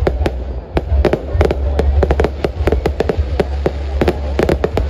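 Aerial fireworks display: a rapid, irregular string of sharp bangs and crackles from bursting shells, over a steady low rumble.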